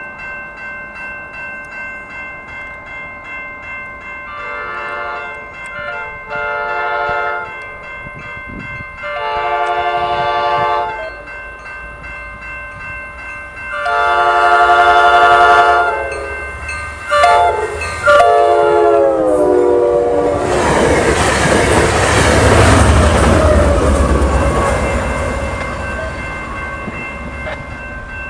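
Passenger train horn sounding a series of long blasts and one short one as the train approaches; the last blast drops in pitch as the train goes by. Then the loud rush and rumble of the train passing, fading near the end.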